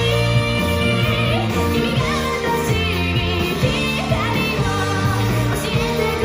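Japanese pop-rock song with female singing over a full band, played back through Dali Rubicon 2C bookshelf speakers.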